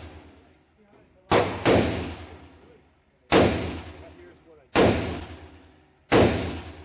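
Short-barrelled AR-15 with a 10.5-inch upper firing .223 full-metal-jacket rounds in slow semi-automatic fire. Five sharp reports, each trailing off in a long echo; two come close together about a second in, the rest about a second and a half apart.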